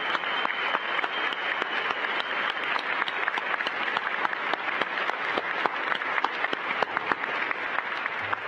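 Audience and people on stage applauding: a steady wash of many hands clapping, with sharp individual claps standing out.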